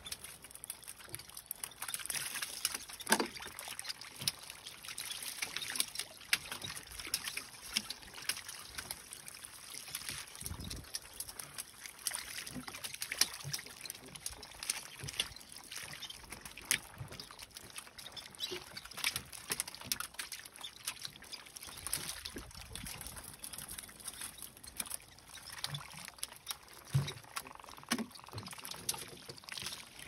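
Water splashing and trickling with many short, sharp splashes at irregular moments: a mass of small fish thrashing at the surface inside a net hauled alongside a boat.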